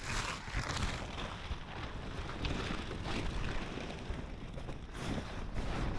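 Tent and sleeping-bag fabric rustling and crinkling as a person climbs into a tent, with scattered small knocks and crackles of handling throughout.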